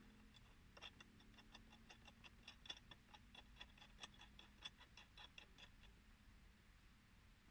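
Faint, irregular light clicks and ticks with a slight metallic ring, several a second, over a low hum that fades out about halfway through.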